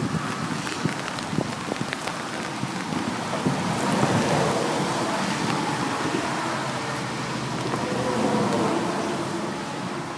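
Rain falling on a kayak and the water around it: a steady hiss with many scattered single drop hits.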